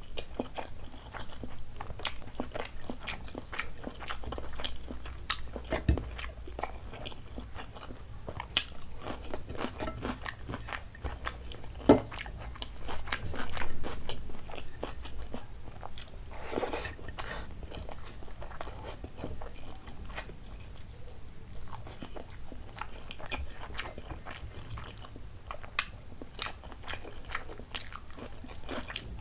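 Close-miked sounds of a person eating a meal of curries and fried food: steady chewing with frequent sharp crunches and mouth clicks, one sharp crunch standing out about twelve seconds in.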